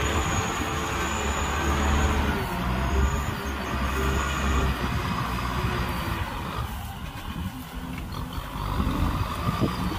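Kubota M6040 tractor's four-cylinder diesel engine running steadily under load as it pulls a disc plow through paddy soil. It grows a little quieter about two-thirds through, then picks up again near the end.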